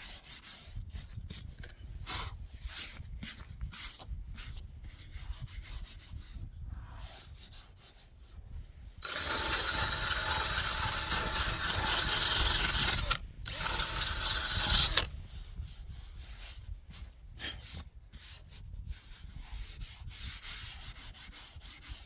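Sandpaper scratching over a cured epoxy fiberglass repair in short, uneven strokes. In the middle, a much louder, steadier stretch of sanding runs for about six seconds, broken briefly once.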